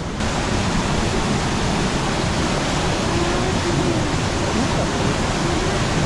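Steady rush of a small waterfall pouring into its pool, coming in suddenly at the start and holding level.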